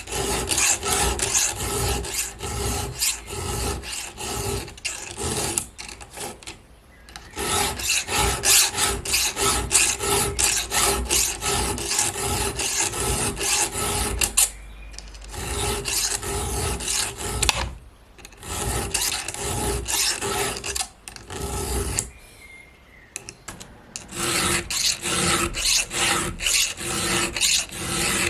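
Chainsaw chain being sharpened with a hand file: a steady run of rasping file strokes across the cutter teeth, broken by several short pauses.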